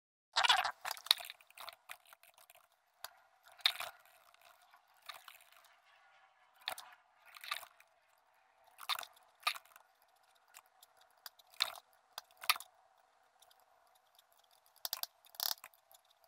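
Scattered computer mouse clicks and keyboard taps, sped up with the fast-forwarded screen recording, so they come as thin, quick, irregular ticks.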